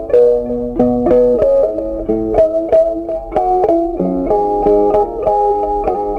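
Background music on a plucked string instrument, its notes picked in a quick, steady rhythm.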